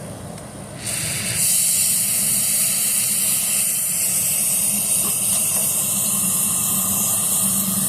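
Brazing torch lit and burning with a steady hiss. The hiss starts about a second in, grows fuller half a second later, and then holds even.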